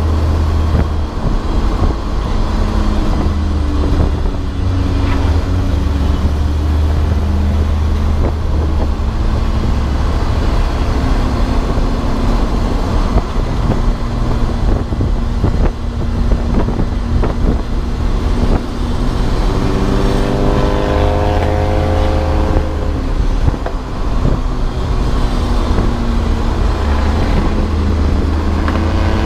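A race car's engine under hard driving, heard from inside the car: steady loud running over road and wind noise, the pitch dropping and climbing with lifts and gear changes, with a clear run of rising revs about two-thirds of the way through.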